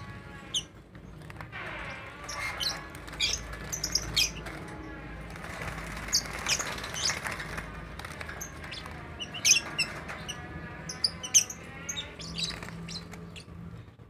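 Caged lovebirds chirping and squawking: many short, sharp high calls, the loudest a little past the middle, over a steady low hum.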